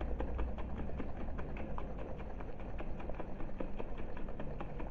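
Sugar being mixed into onion juice in a glass jar: a steady run of light, irregular clicks and taps, several a second.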